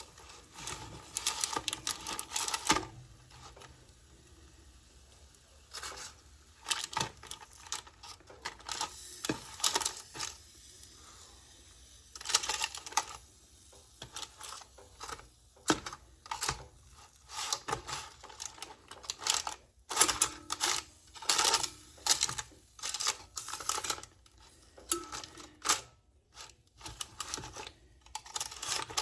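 Irregular clicks and clacks of a cooking utensil against the air fryer basket as pork chops are turned over, with a couple of quieter pauses between bursts of handling.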